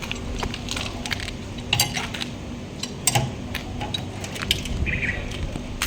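A few sharp metallic clicks and clinks of hand tools on metal, over a steady low hum, during an inspection of a car's underside for a suspension noise.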